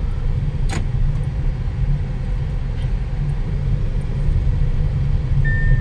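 Hyundai Accent 1.4 four-cylinder running on a road test, a steady low engine and road rumble, now smooth after a misfire was cured with a new ignition coil and spark plugs. A single sharp click comes about three-quarters of a second in, and a short high beep near the end.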